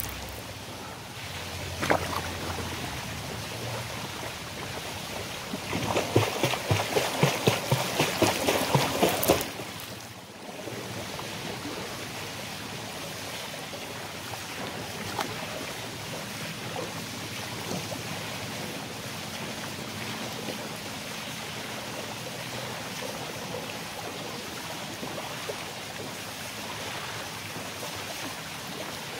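Swimming-pool water running and splashing steadily. A louder run of quick, regular taps or splashes comes from about six to nine and a half seconds in.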